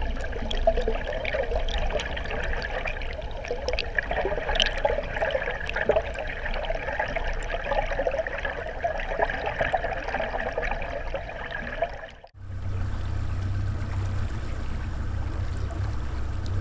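Water rushing and gurgling past an underwater camera towed behind a trolling boat, with small clicks throughout. About twelve seconds in it cuts off abruptly, giving way to the steady low hum of the boat's outboard motor running at trolling speed.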